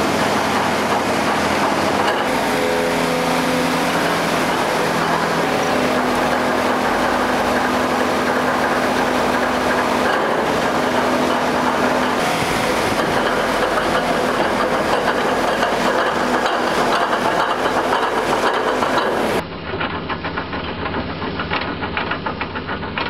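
Excavator engine and hydraulics running while a REMU screening bucket's rotating discs sift compost: a steady loud mechanical noise with a few held tones. About 19 seconds in it switches to a quieter, duller sound of the same kind of work.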